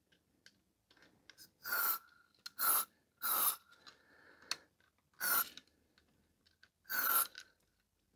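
Five short bursts of aerosol contact cleaner (DeoxIT D5) sprayed through an extension straw into the switches of a circuit board, each a brief hiss, with a few light clicks between. The spray cleans oxidation off the switch contacts and lubricates the stiff switches.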